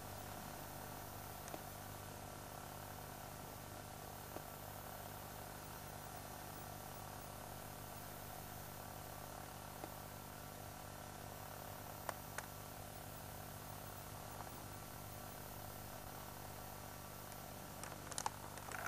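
Steady faint hiss and hum with a few faint clicks, two of them close together about two-thirds of the way through: a camcorder's own recording noise over quiet outdoor ambience.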